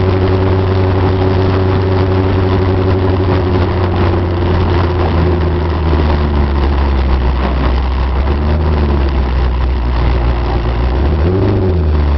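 Fiat 147's turbocharged, carburetted 8-valve engine idling steadily. Its pitch sags slightly about a third of the way in and rises briefly near the end.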